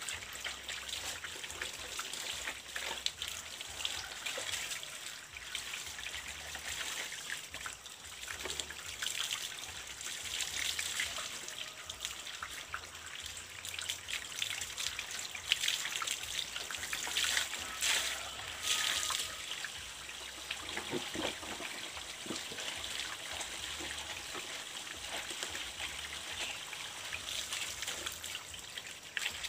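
Water trickling out of a PVC pipe onto cloth that is being scrubbed and rinsed by hand, with irregular small splashes.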